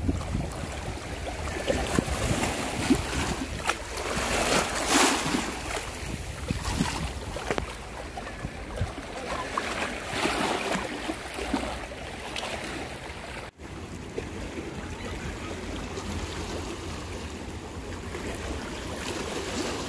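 Wind buffeting the microphone over choppy sea water lapping and sloshing, with a brief dropout about two-thirds of the way through.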